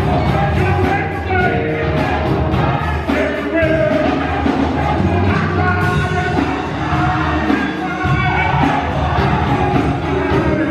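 Gospel choir singing, with instrumental accompaniment underneath.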